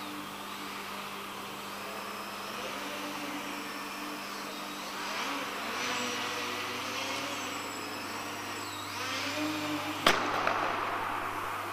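Propeller and motor of a Leadfeather SkyCart RC flying model, a whine that rises and falls in pitch as the throttle changes. About ten seconds in, a single sharp knock as the model comes down hard.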